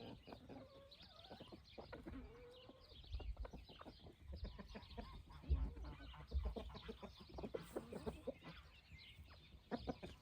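Hens and roosters clucking softly while scratching for food, with many short scratching and pecking clicks. A few low rumbles come through near the middle.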